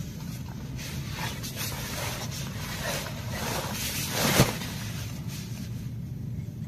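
Nylon sleeping bag rustling and swishing as the person inside it shifts and sits up, with one sharp swish, the loudest moment, just past four seconds in.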